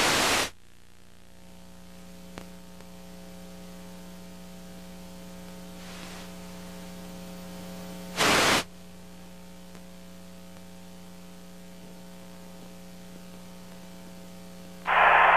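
Dead television broadcast feed: a burst of static that cuts off about half a second in, then a steady electrical hum. A second short burst of static comes about eight seconds in, and a loud hiss starts just before the end. This is the sound of the signal being lost as the earthquake knocked out the broadcast.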